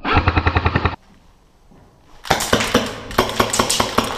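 Airsoft gun firing a full-auto burst of about a second, a rapid even stream of shots that cuts off abruptly. After a short gap, a clattering run of sharp clicks and knocks.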